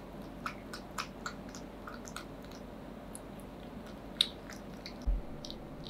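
Ragdoll cat eating wet cat food from a small glass bowl: irregular wet chewing clicks and smacks, with one sharp click about four seconds in and a dull low thump about a second later.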